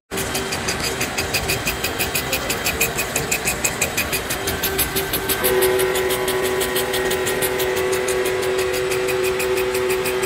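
Machinery running with a regular rapid clicking, about five or six strokes a second, over a steady hum that grows louder about halfway through.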